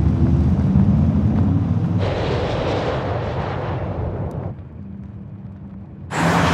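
Porsche Macan Electric sliding on sand, its tyres throwing up spray. There is a deep rumble at first, then a hissing rush of sand for about two and a half seconds. A sudden loud rush of spray comes about a second from the end.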